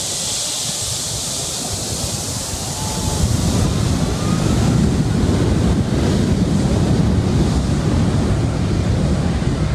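A twin-engine jet airliner's engines at takeoff thrust, heard from directly behind in the jet blast: a high hissing whine, then a heavy low rumble that builds about three seconds in as the airliner rolls away, with the blast buffeting the microphone.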